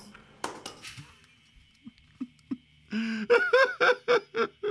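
Two sharp cracks about half a second in, eggs being broken against a bowl. From about three seconds in, a man laughs in a quick run of short bursts, about five a second, the loudest sound.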